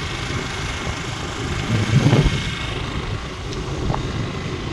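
Motor scooter riding along a road: steady engine and road noise with wind on the microphone, growing louder for a moment about two seconds in.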